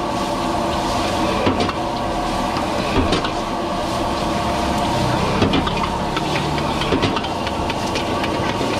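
Gas wok burner running steadily at high flame, with oil sizzling in the wok and a metal ladle knocking and scraping against the wok every second or two.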